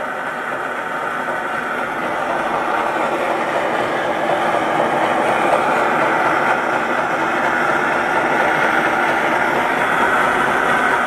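Robinson hot air engine running on its gas burner: the burner's steady hiss mixed with the running engine as it picks up speed, growing gradually louder.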